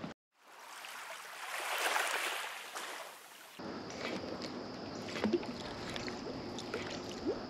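Water lapping against a bass boat's hull. A rushing hiss swells and fades in the first half, then gives way to a low wash with a few light splashes and clicks, and a faint high steady whine runs underneath.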